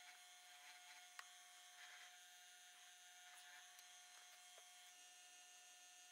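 Faint, steady electric hum of a mini wood lathe's motor running, with a few soft clicks.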